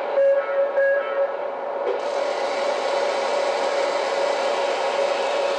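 Lionel Amtrak Acela O gauge train's onboard sound system: a steady electric hum, then about two seconds in a rushing air hiss that lasts several seconds while its animated passenger door slides shut.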